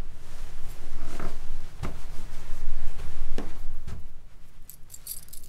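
A few dull thuds over a low room hum, then a bunch of metal keys on a chain jangling in a hand near the end.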